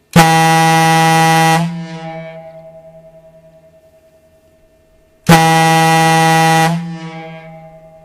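Ship's air horn (tyfon) sounding two steady, deep blasts of about a second and a half each, about five seconds apart. Each blast trails off over a few seconds as it echoes back.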